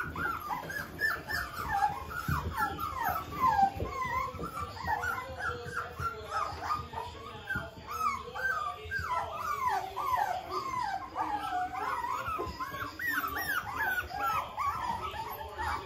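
A litter of five-week-old miniature poodle puppies whining and yipping together without pause, many short high cries overlapping, often falling in pitch.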